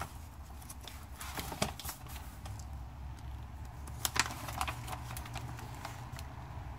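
Paper pages of a tube chart book being leafed through by hand: a few brief rustles and soft taps, over a low steady hum.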